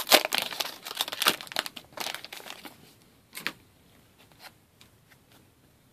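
Foil trading-card pack wrapper crinkling and tearing as it is pulled open and the cards are slid out. The crinkling is dense for the first two and a half seconds, gives one more brief rustle about three and a half seconds in, then fades to a few faint ticks of card handling.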